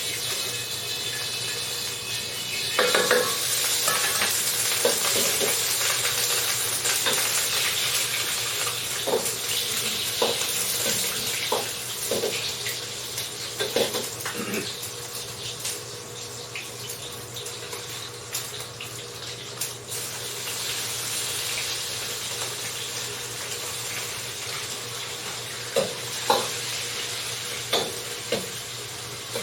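Food sizzling in hot oil in a pan, starting about two and a half seconds in and slowly easing, with a utensil knocking against the pan now and then.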